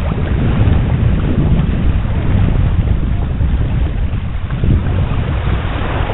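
Wind buffeting the microphone in uneven gusts, a heavy low rumble, over small waves lapping against a rocky shore.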